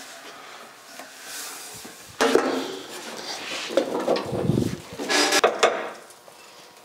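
A manual sheet-metal brake being worked with a piece of 18-gauge sheet steel: a sharp metal clank about two seconds in, a scraping rumble as the sheet and bending leaf are shifted, then a clattering, ringing clank past five seconds.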